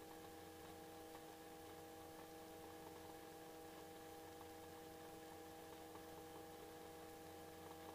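Near silence: a faint, steady electrical hum with several steady tones under it.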